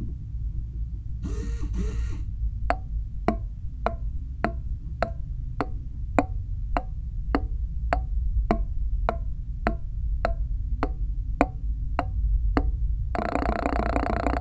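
Simulated inline nine-cylinder engine sound (firing order 1-2-4-6-8-9-7-5-3). Over a steady low hum, single firing pulses tick out slowly and evenly, a sharp click about every 0.6 s, roughly seventeen in all. About a second before the end, the engine comes in as a dense, steady running sound.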